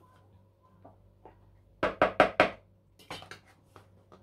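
A metal spoon knocking and scraping against a plastic food container full of chopped salad as it is stirred: four quick, loud strokes about two seconds in, then a few lighter clicks and knocks as the container is handled.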